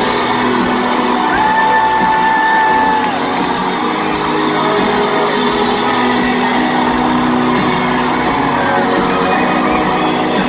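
A live band playing amplified through an arena PA, heard from within the crowd, with fans whooping and shouting over it. A long held note starts just over a second in.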